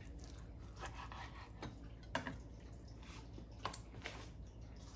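A sharp boning knife cutting fat off a roast pork joint on a plastic cutting board: quiet, with a few scattered soft squishy cuts and sharp clicks of the blade.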